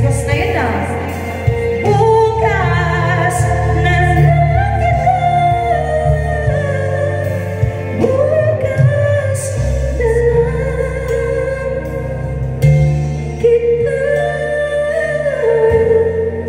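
A woman singing live into a microphone over a sequenced backing track, amplified through a PA system, her voice sliding and holding long notes over a steady bass line.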